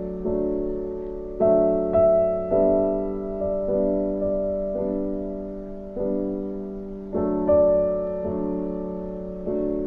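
Background piano music: slow, soft notes and chords, each struck and left to fade.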